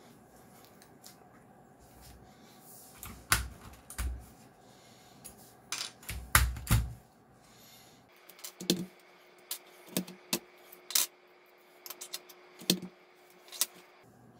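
Keycaps being pried off a Geekstar/Deck Hassium Pro 108 mechanical keyboard with a ring-shaped wire keycap puller and set down on the desk: a string of short, sharp plastic clicks in the second half. Earlier, a few heavier knocks and handling sounds.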